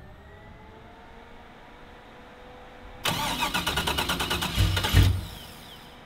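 The LS V8 in a swapped Chevrolet S10 pickup being started: the starter cranks with rapid even pulses for about a second and a half, then the engine fires with two loud low blasts about five seconds in.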